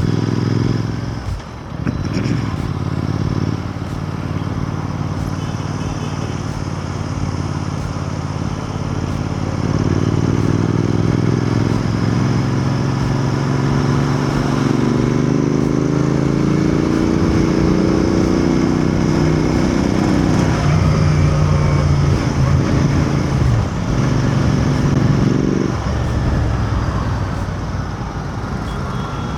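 Royal Enfield Continental GT 650's parallel-twin engine running on the move. The throttle is closed briefly about a second and a half in, then the engine note climbs steadily under acceleration and falls away again about twenty-five seconds in.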